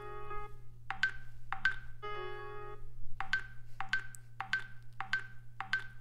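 Ringtone previews playing from a Samsung Galaxy S24's speaker as different ringtones are tapped in the list: chiming melodies of struck, marimba-like notes alternating with held chords, each cut off abruptly and replaced by the next.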